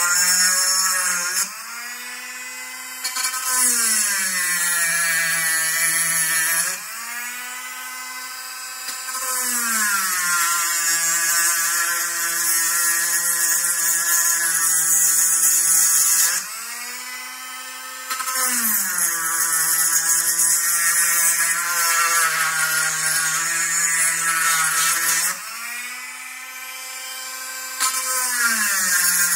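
Cordless Dremel rotary tool grinding metal chassis plate to lengthen the motor-mount screw holes. In loud passes the motor whine drops in pitch under load with a gritty grinding hiss. Four times it lifts off for a second or two, running free at a higher pitch without the grinding.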